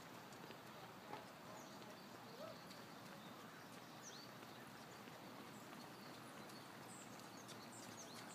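Faint street ambience with the light patter of runners' footsteps on the road and a couple of faint clicks.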